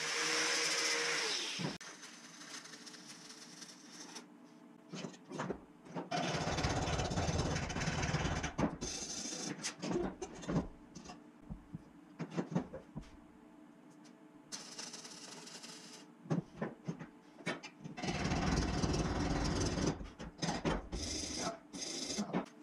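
An angle grinder runs and winds down, falling in pitch, in the first two seconds. Then a hand wire brush scrubs a welded steel tube frame in several bouts of rough scraping, with scattered knocks between them.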